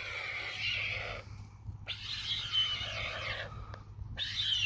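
White stork giving hoarse, hissing begging calls in three bouts of a second or so each, separated by short pauses.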